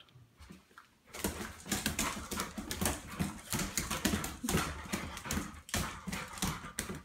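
A dog's claws clicking and scrabbling fast on a tile floor as it spins and lunges, starting about a second in.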